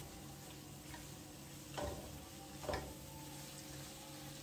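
Spice paste frying faintly in a non-stick wok while a plastic spatula stirs it, with two short clicks of the spatula against the pan about two seconds in and a second later.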